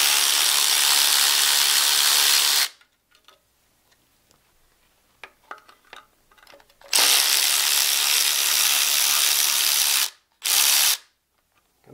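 A handheld power tool runs in three bursts: about three seconds at the start, about three seconds more in the second half, and a short burst near the end. It is spinning out the 10 mm oil pan bolts, with small clicks of socket and bolts in the pauses.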